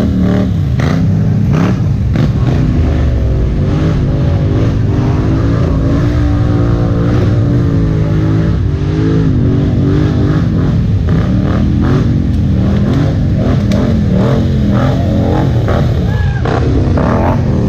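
ATV engine revving hard, its pitch rising and falling again and again over a steady low engine rumble.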